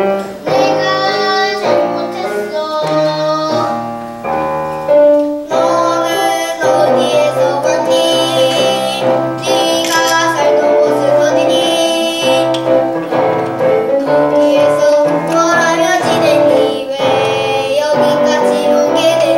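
A child singing a song to piano accompaniment.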